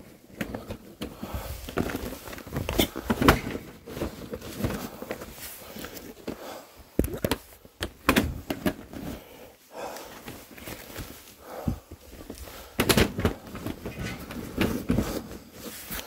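Irregular rustling of fabric tote bags and cardboard boxes being handled and shifted by hand, with scattered knocks and footsteps.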